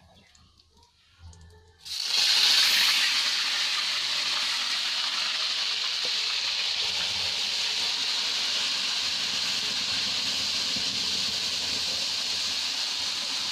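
Onion paste poured into hot oil in a kadhai, sizzling hard. The sizzle starts suddenly about two seconds in, peaks briefly, then settles into a steady loud hiss as the paste begins to fry.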